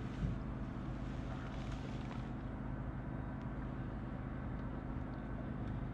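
A boat motor humming steadily, with a small knock about a quarter of a second in.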